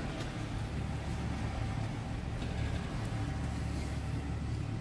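Jeep engine running steadily at low revs, a deep even hum with no revving.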